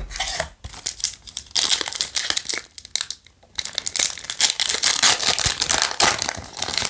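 Foil wrapper of a Yu-Gi-Oh! booster pack crinkling as it is handled, torn open along its sealed top and the cards slid out. The crinkling comes in two long stretches with a short pause about three seconds in.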